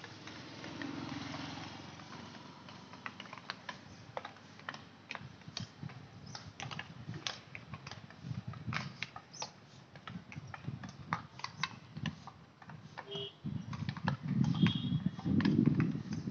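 Field hockey sticks striking balls on an artificial turf pitch: scattered sharp clacks, often several a second. Near the end a few brief high tones come in over a low rumbling noise.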